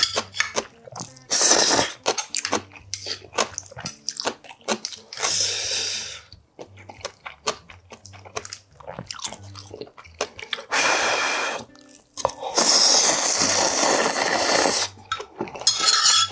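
Close-miked eating sounds of spicy instant ramen noodles: several long, loud slurps with wet chewing and lip smacking in between.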